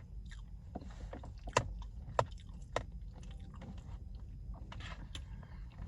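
Close-up chewing and mouth sounds of someone eating a rice-and-meat bowl, with a few sharp clicks about a second and a half, two, and almost three seconds in, over a steady low rumble.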